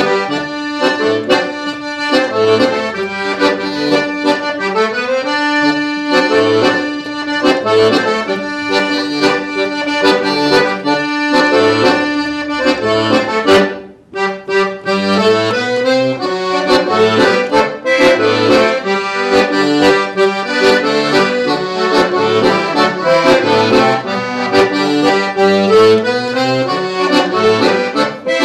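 Todeschini piano accordion played solo in a gaúcho vaneira rhythm: a quick melody on the right-hand keys over regularly repeating bass notes and chords from the left-hand buttons, with a brief break about halfway through.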